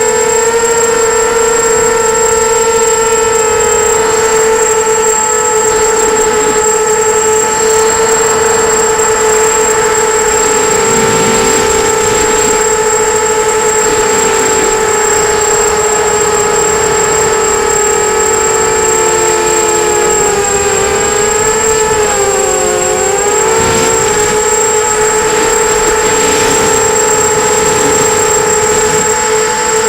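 Electric brushless motors of a 250-size FPV racing quadcopter whining steadily in flight, with a thin constant high tone above them. About two-thirds of the way through, the pitch wavers and dips a few times, briefly splitting into two pitches as the throttle changes.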